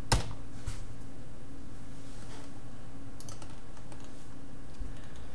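A few computer keyboard key presses: one sharp click just after the start and a small cluster of lighter clicks about three seconds in, over a steady low background hum.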